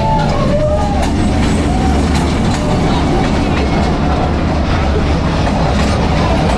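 A train rolling past at very close range: a loud, steady rumble of the train and the clatter of its wheels on the rails.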